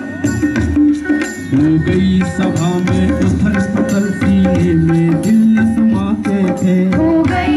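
Indian music with drums and a melody line, playing at a steady beat.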